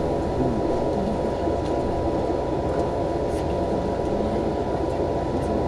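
Steady cabin noise inside an L0 series maglev car rolling slowly on its rubber tyres to a stop, with a constant hum from the car's equipment.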